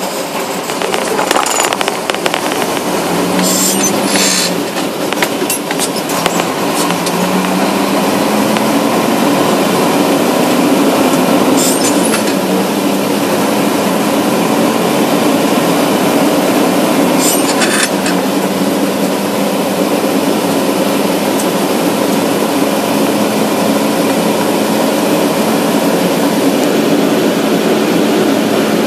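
A car being driven, heard from inside the cabin: a steady engine and road noise whose pitch rises over the first several seconds as it gathers speed, then holds. A few brief sharp clicks or knocks, about four, twelve and seventeen seconds in.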